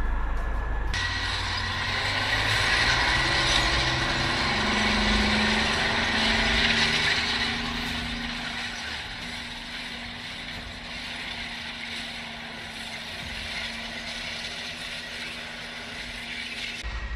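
Tracked tank driving, its engine and tracks running, the engine note shifting in pitch; loudest from about two to seven seconds in.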